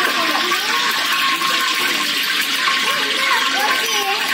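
Steady, loud rushing hiss of the stove's flame burning under an iron kadai of oil being heated, with faint voices in the background.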